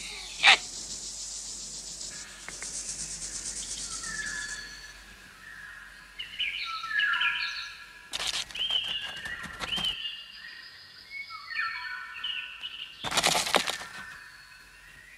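Cartoon soundtrack effects: a sharp click, then a high buzz of insect wings for about four seconds. After that comes a string of short overlapping chirps, broken twice by bursts of rustling.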